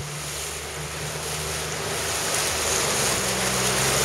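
Wind rushing over the microphone and water splashing from a boat under way, growing gradually louder, with the low steady hum of a motorboat engine underneath.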